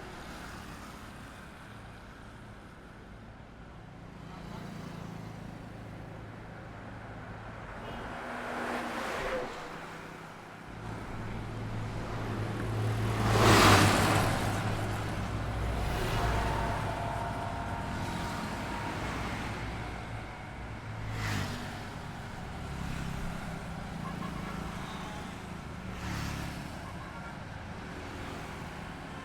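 Road traffic on a highway: vehicles driving past one after another, with engine hum and tyre noise swelling and fading. The loudest pass comes about halfway through, with smaller passes before and after it.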